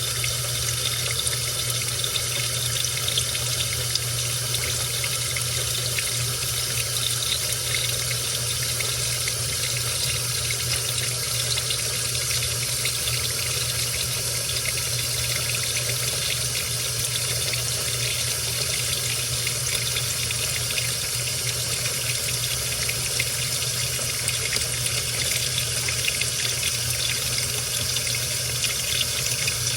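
Washing machine running a wash cycle with water in the tub: a steady rush of running water over a low, even hum.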